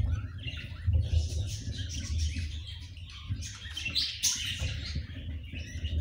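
Budgerigars chirping in a wooden nest box: many short, high chirps, loudest about four seconds in, over low uneven rumbling and thumps.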